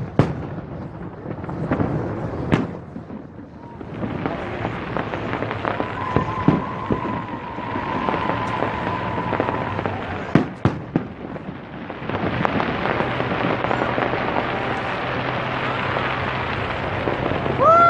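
Fireworks exploding: several sharp bangs in the first few seconds and two more about ten seconds in, over a dense, continuous din of distant bursts and crowd.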